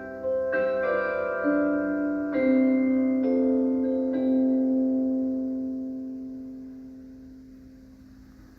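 Tower bells striking a short run of about seven notes, the strikes overlapping in a ringing wash. The last notes ring on and fade away slowly over the second half.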